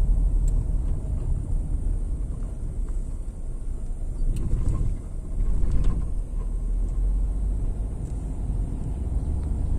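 Inside a moving car's cabin: a steady low rumble of tyres and engine at low driving speed, with a few faint ticks.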